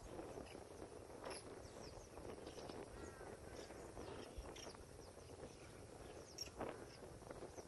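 Faint birdsong from several birds: short chirps and brief whistled notes scattered throughout, over a low background hiss, with one stronger call about six and a half seconds in.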